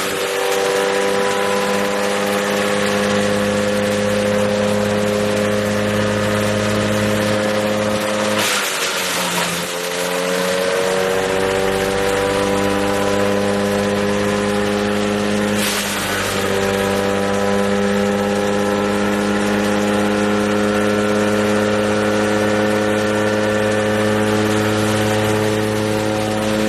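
Wood chipper's engine running steadily. Twice, about a third of the way in and again a little past halfway, there is a short burst of chipping noise as the engine drops in pitch, then it climbs back to speed.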